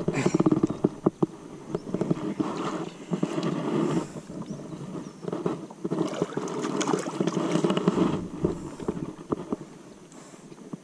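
Baitcasting fishing reel being wound in several spells while a small bass is played on the line, with many short clicks.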